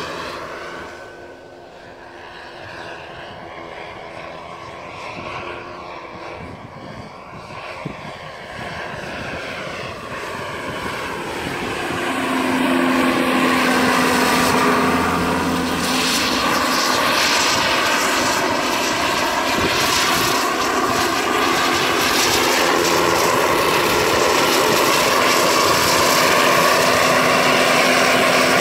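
Turbine-powered Vario scale RC helicopter flying: the whine of its small gas turbine together with the rotor, its pitch sliding up and down as the model moves. It is fainter at first, grows louder over a few seconds about halfway through as the helicopter comes close, then holds steady as it hovers low.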